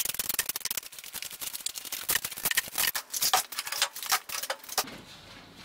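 Bar clamps being loosened and taken off a glued-up wooden board: a rapid, uneven run of metal clicks and rattles that dies down about five seconds in.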